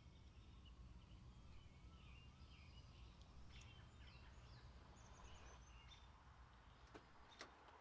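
Faint birdsong, scattered short chirps, over a steady low outdoor rumble, with two soft clicks near the end.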